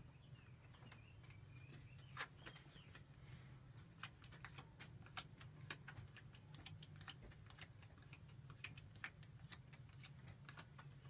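Playing cards being dealt onto a wooden floor: a long run of faint, quick card snaps and taps. A thin, high wavering chirp sounds faintly in the first few seconds over a low steady hum.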